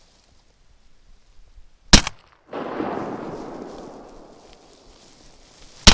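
Two shotgun blasts about four seconds apart, the second right near the end, each followed by a long fading rumble.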